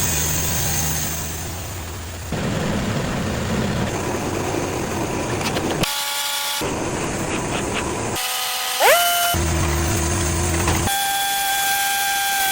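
Cooks AC36 band sawmill running and cutting southern yellow pine, the sound changing abruptly several times: a steady machine hum, stretches of blade cutting noise, a rising whine about nine seconds in, and a steady high whine near the end.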